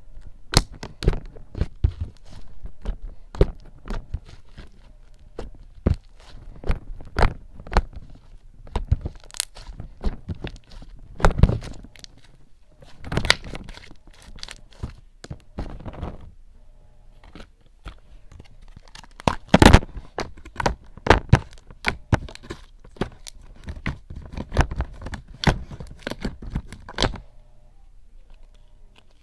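Light purple homemade butter slime being stretched, squeezed and poked by hand: a run of irregular sharp pops and clicks. They pause briefly about two-thirds through and stop near the end.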